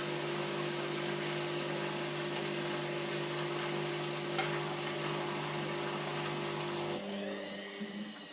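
Candy GO DF800 front-loading washing machine: a steady rush of water with a low hum from the machine. About seven seconds in, the rush stops and a motor whine starts, rising in pitch.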